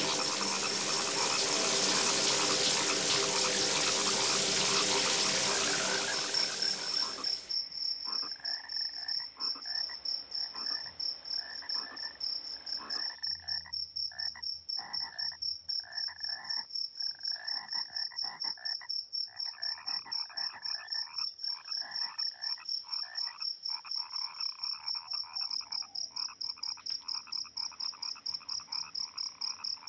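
Frogs croaking in a steady rhythm, several calls a second, over a constant high-pitched tone. For the first seven seconds a loud rushing noise covers them, then cuts off.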